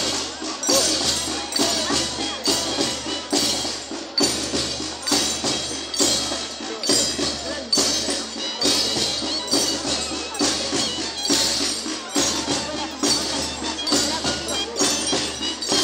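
Live band music for the negritos dance, drums and percussion keeping a steady beat under a melody.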